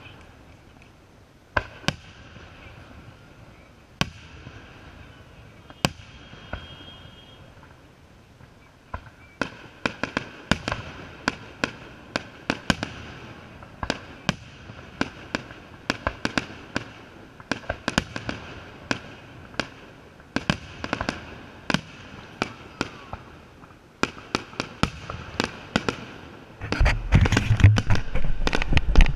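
Aerial firework shells bursting. At first single booms come about every two seconds. From about nine seconds in there is a quick run of many bangs and crackles, which builds near the end into a dense, loud barrage with a deep rumble.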